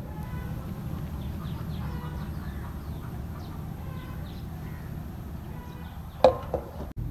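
Birds chirping in short falling notes over a steady low rumble, with one sharp knock and a brief ring near the end.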